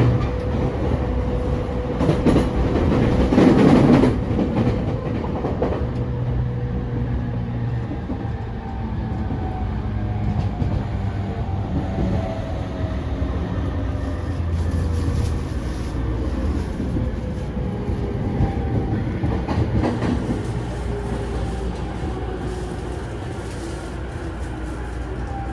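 E231-500 series electric commuter train running: wheels clattering over rail joints, loudest a few seconds in, under a steady rumble. From then on the traction motors' whine slides steadily down in pitch as the train slows.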